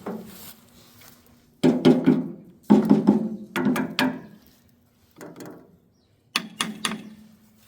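Farmall 400's starter cranking the engine in four short bursts, each under a second, without the engine catching; the battery is too low to start it.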